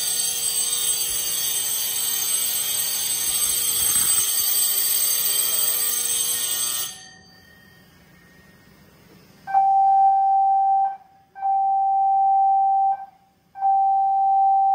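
Ship's fire alarm bell ringing continuously, cutting off about seven seconds in. After a short quiet gap, a steady alarm tone sounds three times, each about a second and a half long.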